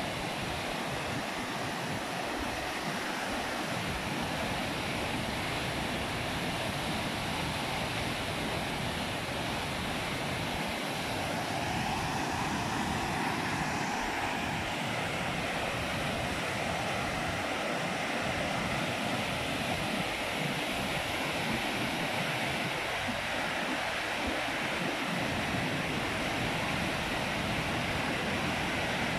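A river in flood after heavy rain, muddy water rushing through rapids: a steady, continuous rush of churning white water.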